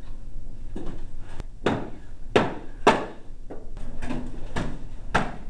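Homemade padded swords striking homemade armor and shields in a sparring fight: about eight sharp knocks at irregular spacing, roughly one every half second.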